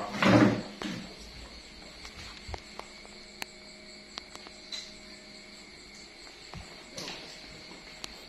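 A loose fish thrashing on a tile floor makes a brief loud scuffle in the first second. After that, crickets chirr steadily, with a few sharp taps and clicks.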